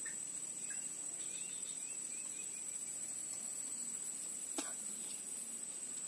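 Insects chirring in a steady, high-pitched drone, with a short run of faint bird chirps early on and a single sharp click about four and a half seconds in.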